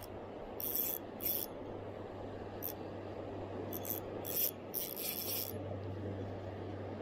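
Shimano Stradic FL 1000 spinning reel being cranked while a hooked fish pulls on the bent rod, its mechanism sounding in about six short, high-pitched bursts over a steady background hiss.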